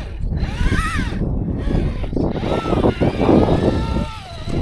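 Wind buffeting the microphone with a heavy, uneven rumble, and a short rising-and-falling whine about a second in.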